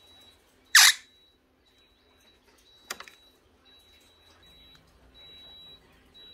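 Monk parakeet giving one short, loud, harsh squawk about a second in. A single sharp click follows near the middle, over a faint high-pitched tone that pulses on and off.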